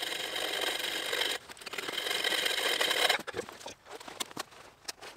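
Bow saw cutting through a thick log with coarse, rasping strokes. It pauses briefly after about a second and a half and stops about three seconds in.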